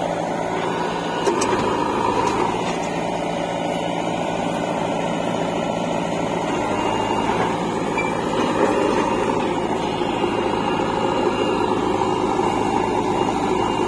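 Diesel engines of a JCB 3DX backhoe loader and a tractor running steadily together while the backhoe swings its bucket to load earth.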